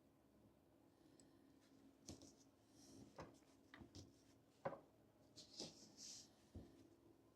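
Faint handling sounds: a dozen or so light clicks and taps with a few short scraping sounds, as two-part JB Weld epoxy is mixed and worked into a camera clamp's joint.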